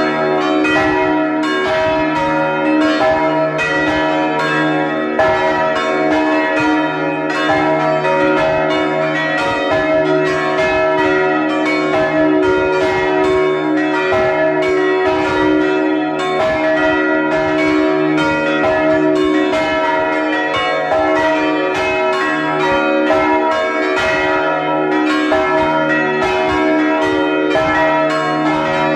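Plenum of the five swinging church bells of a 16-bell carillon, heard at close range inside the belfry: strokes from several bells overlap continuously in an unsynchronised jumble over a sustained ringing hum.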